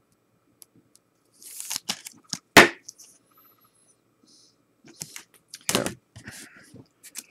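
Trading cards and a clear plastic card holder handled by hand: short rustling and scraping, with two sharp knocks about two and a half seconds in and near six seconds, the first the loudest.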